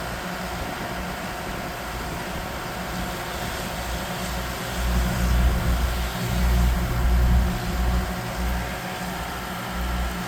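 An engine running steadily in the background, with low rumbling surges between about five and eight seconds in.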